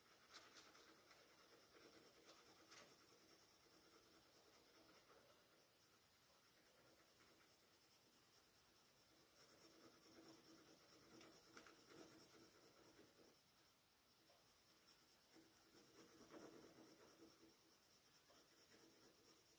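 Faint scratching of a coloured pencil rubbed on its side across paper, shading an area in soft strokes.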